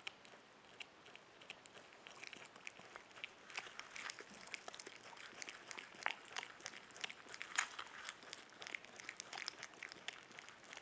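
A capybara chewing yam: a steady run of small crunching, smacking clicks from its teeth and mouth, getting busier and louder after the first couple of seconds.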